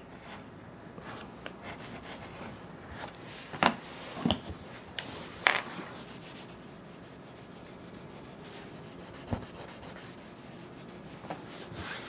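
Rubbing and scraping on a wooden floor surface during flooring repair: a quiet, steady scrape broken by a few short, sharp strokes, the loudest clustered around four to five and a half seconds in and one more near nine seconds.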